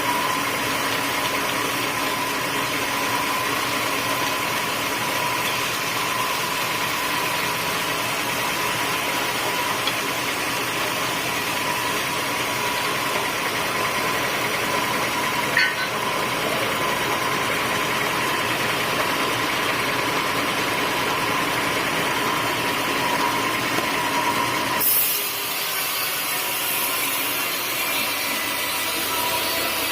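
Sawmill machinery running steadily, a mechanical drone with a constant whine. About 25 seconds in the sound changes abruptly, losing its low rumble and taking on a higher hiss.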